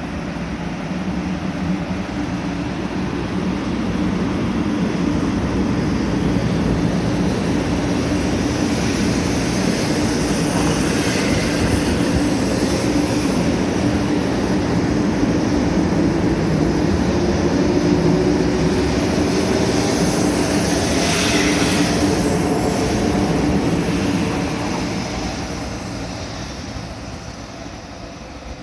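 JR West 500 series Shinkansen train pulling out along the platform: a steady running noise swells as the cars move past, with a faint whine rising in pitch as it gathers speed. It fades away over the last few seconds as the train draws off down the line.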